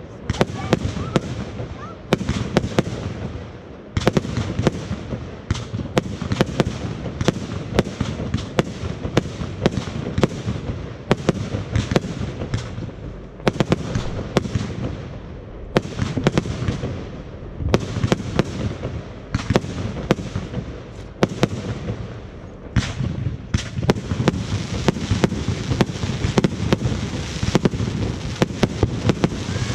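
Fireworks display: a dense, continuous barrage of sharp bangs and crackling shell bursts. New volleys start every two seconds or so.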